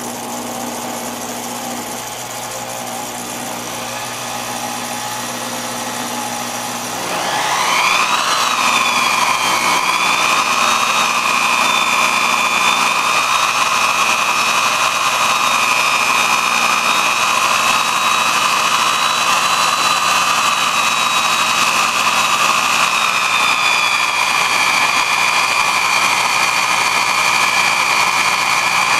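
Electric motor spinning a 5-inch knife-sharpening disc, running with a steady hum; about seven seconds in it rises in pitch and gets louder, settling into a steady high whine.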